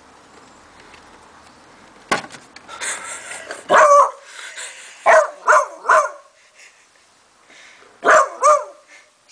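Beagle puppy barking at a singing treat jar: one longer bark, then three quick barks, then two more near the end. A sharp click comes about two seconds in, before the first bark.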